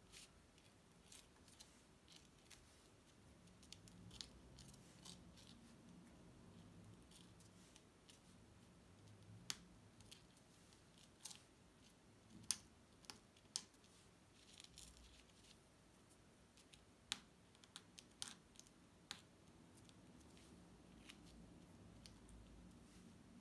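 Faint, scattered small clicks and scratches from fingers picking and pressing at a sand-painting card, a handful of sharper ticks standing out through the middle, over near-silent room tone.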